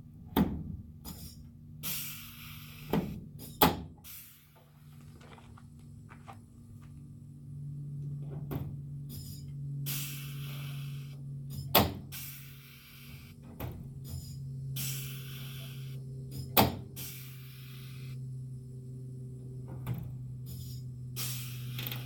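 Pneumatic rivet gun setting 3/16-inch blind rivets in sheet metal: repeated bursts of air hiss and several sharp snaps as the mandrels break, over a steady low hum.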